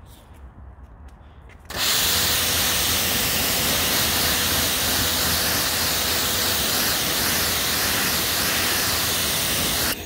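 Water spray rinsing a car bonnet: a steady, loud hiss that starts abruptly about two seconds in and cuts off just before the end, with a faint steady tone underneath.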